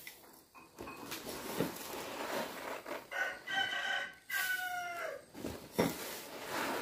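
A rooster crowing once, a long call of about two seconds in the middle that drops in pitch at its end. Around it, rice pours and rustles as it is scooped from a sack with a bowl and tipped into a basin of water.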